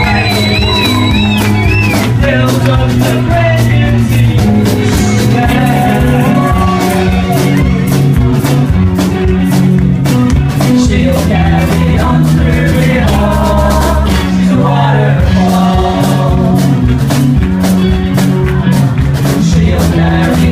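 A song: a sung vocal melody over a band with bass and a steady drum beat.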